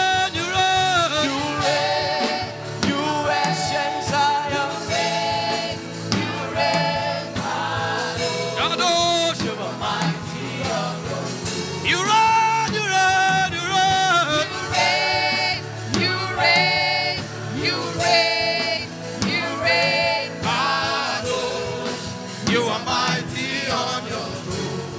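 Gospel worship song: voices singing long, sliding held notes over steady instrumental backing.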